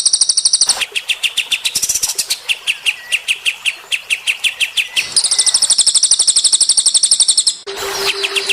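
Songbird chirping in fast runs of short repeated high notes, with a long rapid trill about five seconds in. A low, evenly pulsing tone joins near the end.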